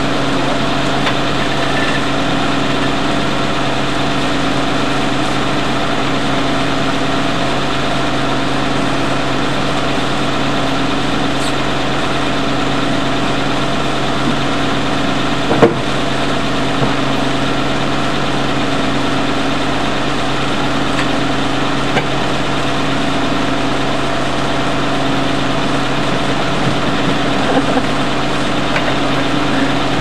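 Restored antique circular sawmill running: a steady machinery drone with a constant hum, and one sharp knock about halfway through.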